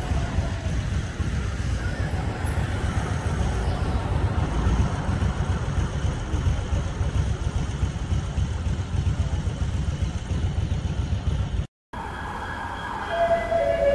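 Road traffic on a town street: cars driving past with a steady low rumble of engines and tyres. Near the end the sound cuts off abruptly, and a siren starts up.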